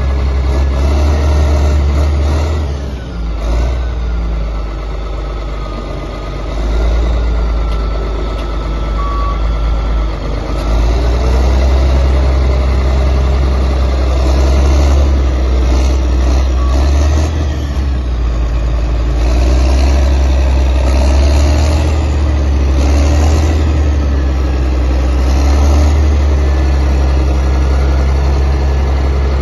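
Caterpillar D7G-2 crawler bulldozer's diesel engine running. It dips twice in the first few seconds, picks up again about seven seconds in, and then runs on steadily.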